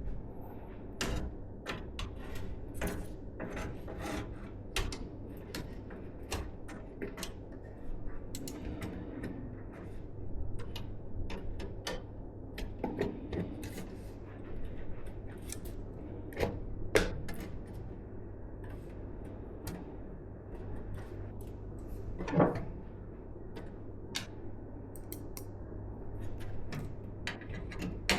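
Hands handling and fitting computer parts: a string of small clicks, taps and rustles, with two louder knocks about 17 and 22 seconds in, over a steady low hum.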